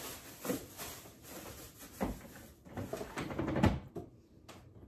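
Plastic produce bags rustling and three sharp knocks as items are put away on refrigerator shelves.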